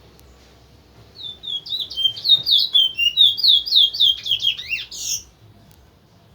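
Towa towa (large-billed seed finch) singing one fast song phrase: a rapid run of clear, sliding whistled notes lasting about four seconds, starting about a second in and ending on a harsher, buzzier note.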